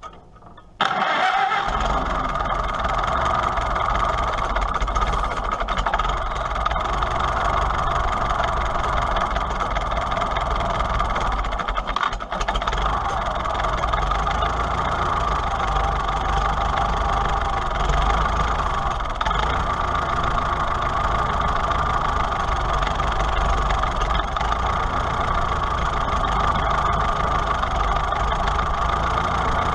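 Farmall H tractor's four-cylinder engine starting up about a second in and then running steadily at idle on its freshly reinstalled carburetor. The sound dips for a moment about twelve seconds in.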